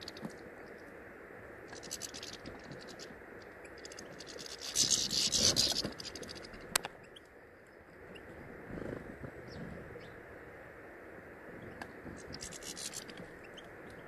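European goldfinches pecking and scrabbling through loose sunflower seeds and mixed seed on a wooden bird table close to the microphone. The seeds rustle and scratch in short bursts, loudest about five seconds in, with a single sharp click just before seven seconds.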